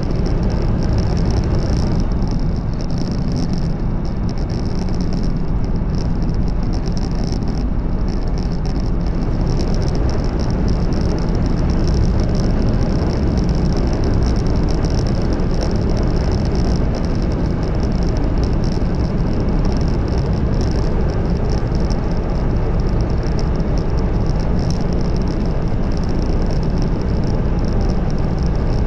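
500 series Shinkansen running at speed through a tunnel, heard inside the passenger cabin: a loud, steady rumble of wheels and rushing air, with a steady high hiss over it.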